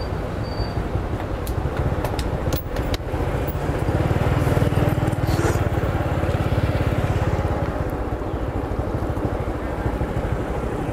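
Motorbike engine running with wind rumble on the microphone. It grows louder about four seconds in and eases off again near eight seconds, with a few light clicks just before the swell.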